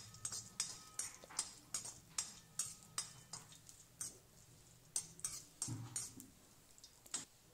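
Steel ladle scraping and clinking against a metal kadai while cashews and raisins are stirred in ghee: a run of light clinks and scrapes, about two or three a second.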